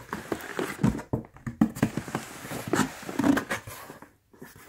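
Cardboard box flaps being opened and handled by hand: a series of irregular scrapes, rustles and taps of cardboard, dying away near the end.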